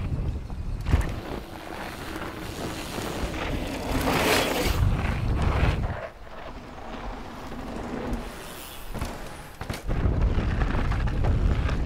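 Mountain bike descending a dirt trail at speed: wind rushing over the microphone and tyres rolling on dirt, with a louder rush of noise about four seconds in. The low wind rumble eases for several seconds, then comes back strong near the end.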